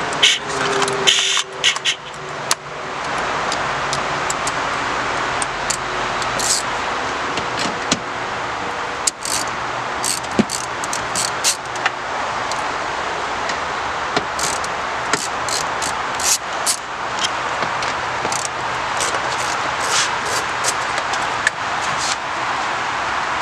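Scattered short metallic clicks and clatters of a 10 mm socket wrench and hands working loose the taillight bolts inside a car's rear hatch, over a steady hiss.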